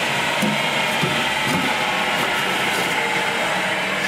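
Belt-driven 10-inch cast-iron pedestal grinder with a 1 hp three-phase motor fed by a VFD, running steadily with its covers off.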